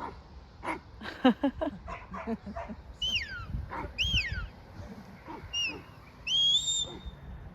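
Working sheepdogs barking and yipping in short bursts, followed by several high sliding calls, two falling ones in the middle and steadier ones near the end.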